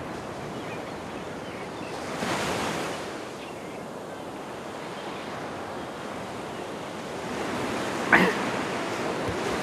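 Waves breaking on a sandy seashore: a steady wash of surf, with one wave swelling louder about two seconds in. A brief sharp cry comes near the end.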